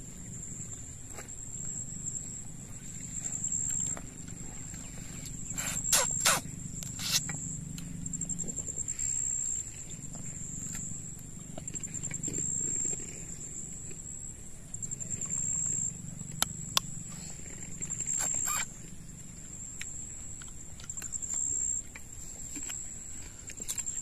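Close-up eating sounds: chewing and sucking on pieces of crab in curry, with a few sharp cracks of crab shell, the loudest near the middle. An insect chirps steadily at a high pitch.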